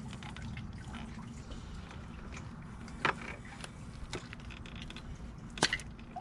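Hands working the throttle body loose: a few short plastic clicks and handling taps, the sharpest about five and a half seconds in, over a steady low hum.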